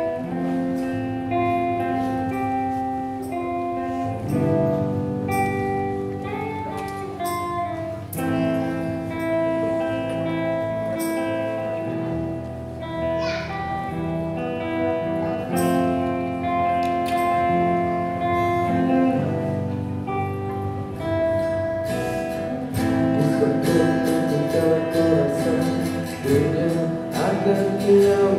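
A band playing a song on acoustic guitar and electric bass, with long held melody notes over the chords. The playing grows louder and busier in its last third.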